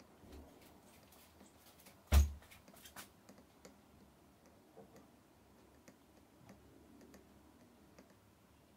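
Apple Pencil tip tapping and stroking on the iPad Pro's glass screen: faint scattered clicks, with one louder knock about two seconds in followed by a few lighter taps.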